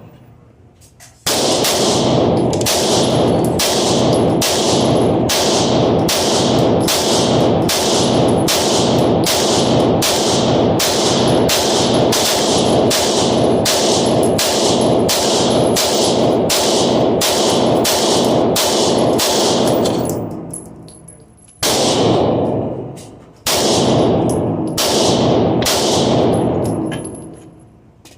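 9mm Glock 19 pistol fired in a fast steady string, about one and a half shots a second, each shot ringing on into the next. Near the end it pauses, then a few more shots follow.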